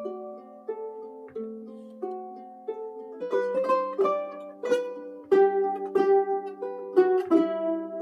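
Ukulele playing: a few single plucked melody notes, then strummed chords from about three seconds in.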